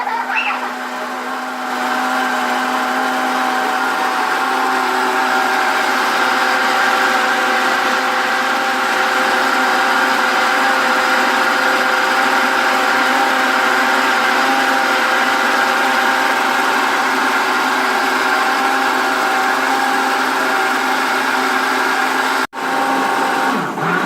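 Electric blender running steadily, mixing condensed milk, cream, strawberry drink powder and strawberries into a thick dessert; it gets a little louder after about two seconds and stops suddenly near the end when switched off.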